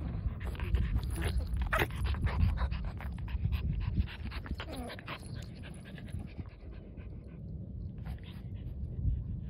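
Two French bulldogs play-wrestling, with quick panting breaths and snuffling, mouthy sounds; the noise eases about four seconds in as they separate. Wind rumbles on the microphone.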